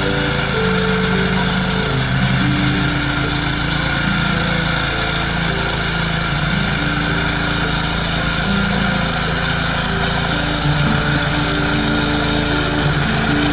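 Tasco BK 55H mini tiller's Honda GX160 5.5 hp four-stroke petrol engine running steadily.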